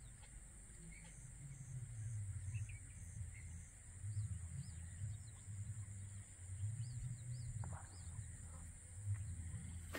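Wind buffeting the microphone in low, uneven gusts, with a steady high hiss and a scattering of faint bird chirps.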